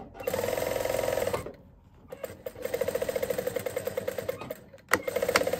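Jack sewing machine stitching a seam through layered fleece fabric, running in three fast, even bursts with short pauses between them and a sharp click just before the last burst.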